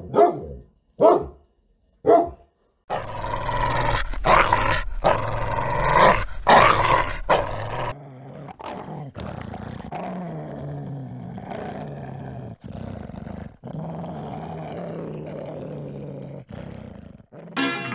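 A dog barking: a few short barks, then a louder, denser stretch of barking and snarling, and from about eight seconds in a long, lower, steady growl.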